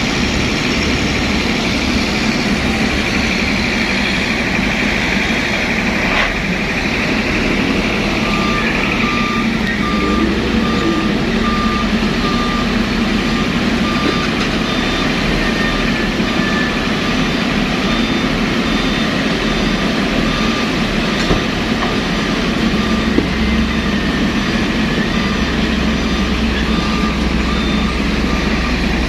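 Heavy diesel machinery running, with a vehicle's reversing alarm beeping steadily, about two beeps a second, from about eight seconds in.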